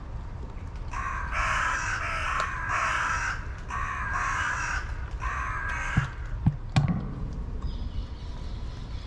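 A crow cawing: about five harsh caws in a row, each under a second long, ending about two-thirds of the way through.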